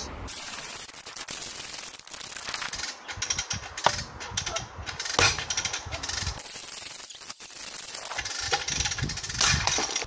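Irregular sharp metallic clicks and snaps, with a louder crack about four seconds in, from a break-test rig pulling two gate-opposed 10 mm stainless steel snap hook carabiners on shackles as the load climbs past 11 kN.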